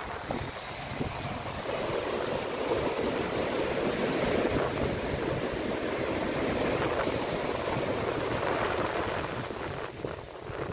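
Pacific surf washing in: a rush of wave noise that builds about two seconds in, holds, and falls away near the end.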